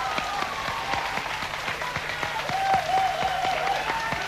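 Studio audience applauding, many hands clapping at once.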